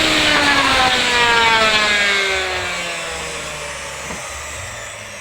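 Electric wood mortising machine's motor coasting down after being switched off, its whine falling steadily in pitch and fading. A light knock about four seconds in.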